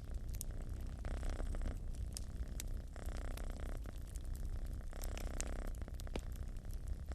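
A domestic cat purring steadily close up, the purr swelling and easing with each breath, over the crackle and small pops of a wood fire burning in a fireplace.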